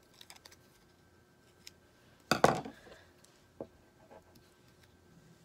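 A few faint snips of scissors cutting paper, then a loud clatter a little over two seconds in as the scissors are put down on a wooden tabletop, followed by a few light taps.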